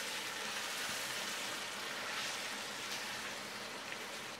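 Meat and onion-tomato masala frying in a stainless steel pot: a steady sizzling hiss that swells a few times as a wooden spatula stirs through it.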